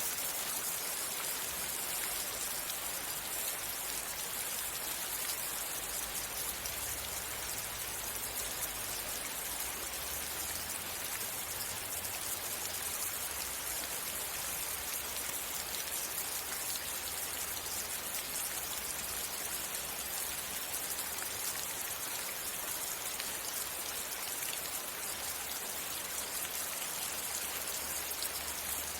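Steady rain falling, an even hiss of many drops with no breaks or changes.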